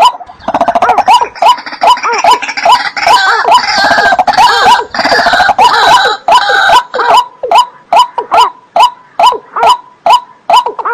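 Waterbird calls repeating about twice a second, each a short hooked note, with more calls overlapping in a busier chorus for the first seven seconds or so before settling back to the steady repetition.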